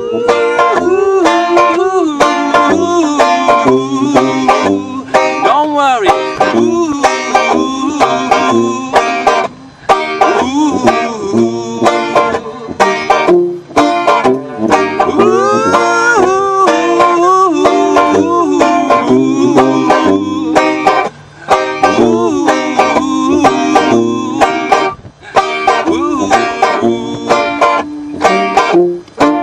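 Banjo, tuba and saxophone playing an upbeat tune together: the banjo plucked and strummed in a steady rhythm over the tuba's low bass notes, with a melodic line on top.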